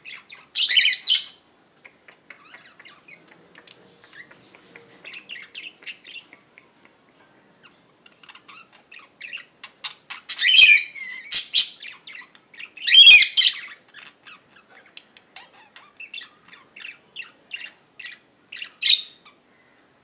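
Caged budgerigars chattering in rapid short chirps, broken by four louder calls: about a second in, around ten to eleven seconds, at thirteen seconds and near the end.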